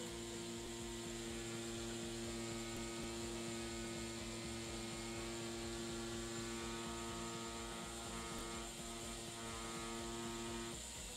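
Tattoo machine buzzing steadily with an even hum while lining on practice skin, then switched off suddenly near the end.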